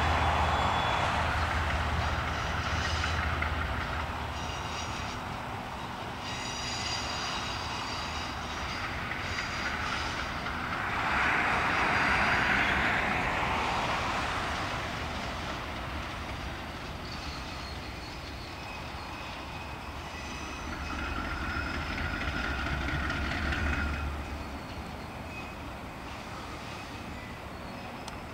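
KiwiRail diesel-electric freight locomotive running at low speed as it approaches hauling tank wagons, with a steady low engine rumble and faint thin squeals from the wheels on the rails.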